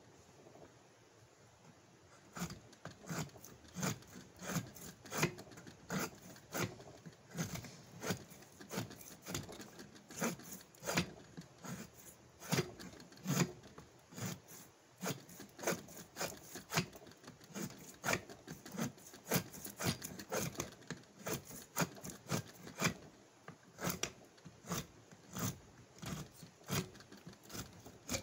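Hand blade shaving a seasoned hickory axe handle clamped in a vise: short, rasping strokes, a little over one a second, starting about two seconds in.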